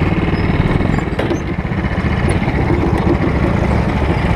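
Go-kart's small engine idling steadily, loud and close from a camera mounted on the kart.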